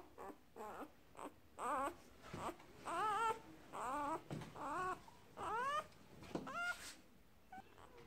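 Newborn puppy, only hours old, crying in a string of short, high squeals that rise in pitch, about a dozen of them, while it is picked up and held in a hand.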